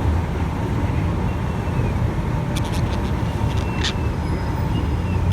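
Steady low rumble of traffic, with two short, faint high chirps from a green-cheeked conure partway through.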